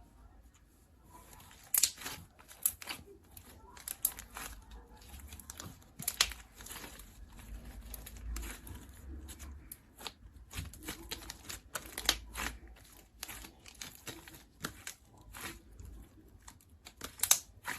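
Semi-clear slime being squished and stretched, giving irregular sharp crackling clicks and pops.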